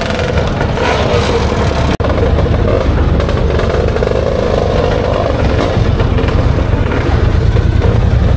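Motor scooter engines running steadily, with a momentary break in the sound about two seconds in.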